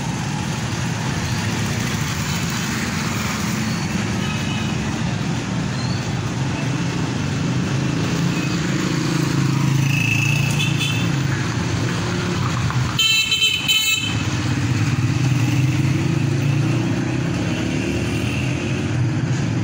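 Road traffic: a steady rumble of motor vehicles running past, with a short horn toot about two-thirds of the way through.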